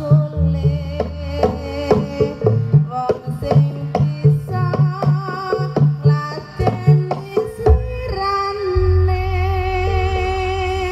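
Live East Javanese jaranan music: fast hand-drum strokes and struck percussion over a wavering melody line. Deep low notes sound shortly after the start and again about eight seconds in.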